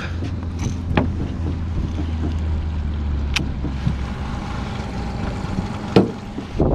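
A boat's motor running with a steady low hum that stops about four seconds in, with wind on the microphone and a few sharp clicks.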